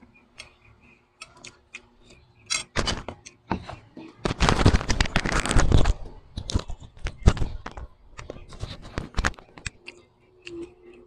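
Close-up eating sounds: a person chewing and crunching fried fish and rice eaten by hand, with many small clicks and smacks and a denser stretch of loud crunching about four seconds in.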